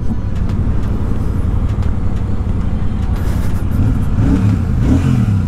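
Royal Enfield Super Meteor 650's 648 cc parallel-twin engine running steadily while the bike is ridden, its pitch rising and falling briefly near the end.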